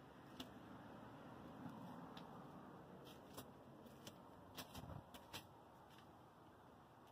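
Near silence: faint background hiss with a few light clicks, most of them bunched between about four and five and a half seconds in.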